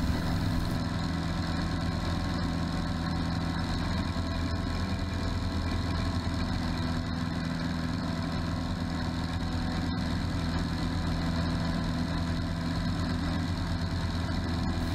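Aeronca floatplane's piston engine and propeller running steadily in flight, an even drone with no change in pitch.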